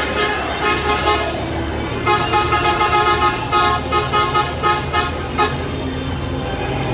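Celebratory car-horn honking over a low engine rumble. The horns sound held at first, then from about two seconds in break into a run of short rapid toots, several a second.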